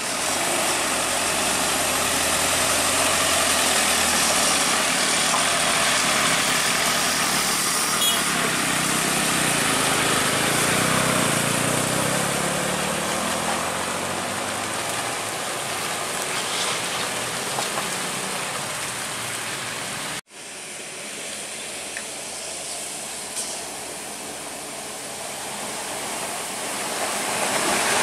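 Heavy diesel truck engine labouring up a steep grade and passing close, its pitch shifting about ten seconds in, over tyre noise on a wet road. A sudden cut about two-thirds through, then quieter traffic that builds as another heavy truck approaches near the end.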